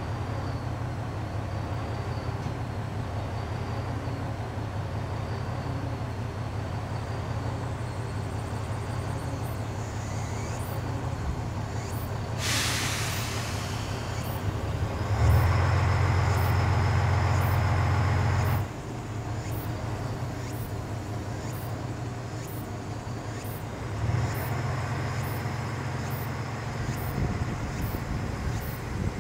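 Diesel railcar idling at a station platform with a steady low engine hum. About halfway through there is a short, sharp hiss of air brakes releasing. Soon after, the engine runs up louder for a few seconds and drops back, then picks up again near the end.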